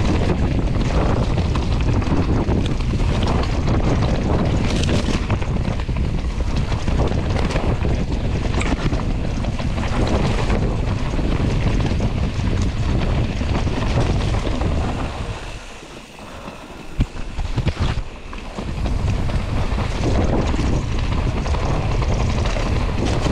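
Heavy wind buffeting on the camera microphone from a mountain bike riding down a rocky trail, mixed with tyre and bike rattle. About two-thirds of the way through it eases off for a few seconds, broken by a few sharp knocks, then picks up again.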